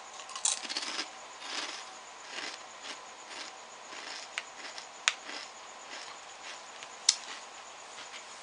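Potato chips being handled and eaten: irregular crinkling and crunching, loudest about half a second in, with a few sharp clicks later on.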